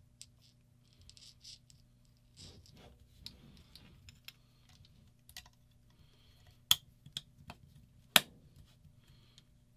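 Paintball marker parts being handled and fitted together by hand: light clicks and scrapes, then two sharp clicks about a second and a half apart near the end as pieces are pressed together.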